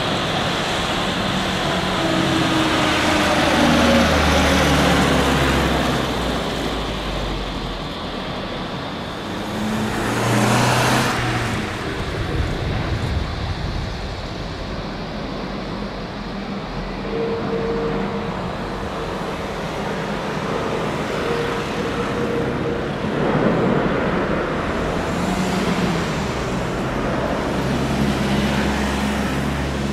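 Jet engine noise from Airbus A330 airliners landing and taking off: a steady rushing with low engine hums that swell and fade, loudest a few times as aircraft pass.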